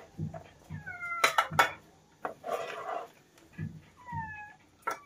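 Kittens meowing: a few short calls that fall in pitch, with a couple of sharp clicks about a second and a half in.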